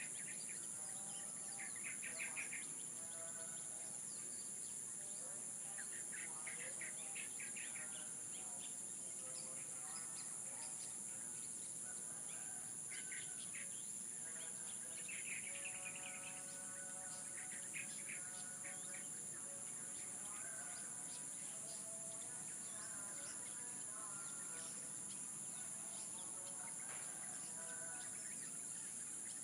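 Birds chirping and calling in short clusters over a steady, high insect drone.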